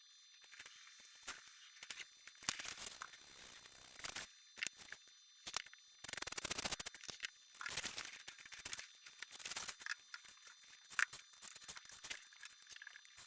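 Foam board being worked by hand: irregular scraping and tearing strokes, with a longer run of quick scraping about six seconds in.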